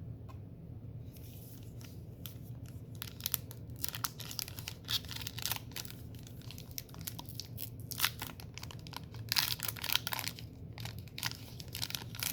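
Baseball card pack wrappers being torn open and crinkled, a run of short crackling rips starting about a second in.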